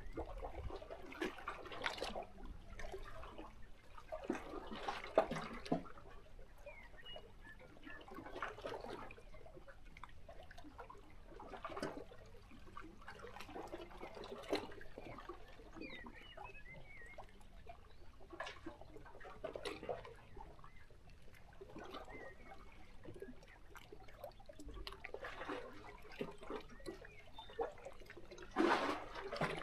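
Small sea waves lapping and splashing against shoreline rocks, coming in irregular surges every few seconds, the biggest splash near the end. A few faint bird chirps sound in between.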